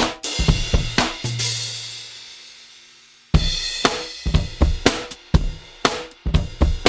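Sampled drum kit from the EZdrummer 3 Claustrophobic expansion playing a tight beat of kick, snare and hi-hat. About a second in the beat stops on a cymbal crash and a low booming bass note that ring out and fade. The groove starts up again a little before halfway through.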